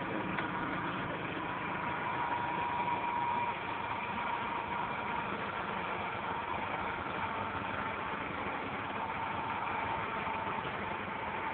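An engine idling steadily, with a faint steady whine that is strongest for the first few seconds.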